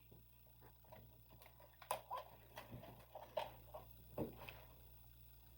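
Faint, irregular clicks and taps over a low steady hum. The taps bunch up between about two and four and a half seconds in.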